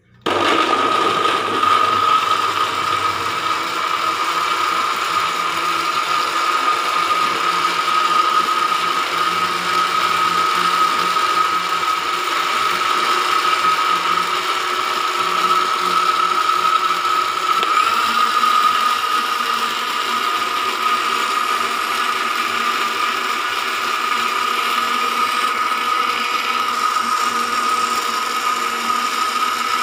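Electric kitchen blender switched on and running steadily at speed, its motor giving a constant high whine over a dense mechanical noise.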